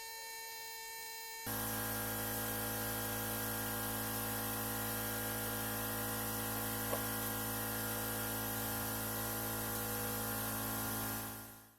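A steady hum and hiss with many held tones, starting abruptly about a second and a half in and fading out near the end.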